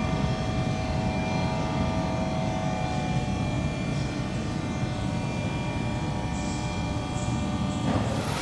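Steady machinery drone with several thin whining tones over a rumble; the tones fade about halfway through, and a rushing hiss starts near the end.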